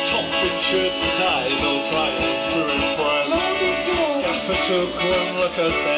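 Live band music: strummed guitar over a steady beat, with a melody line bending in pitch over it from about halfway through.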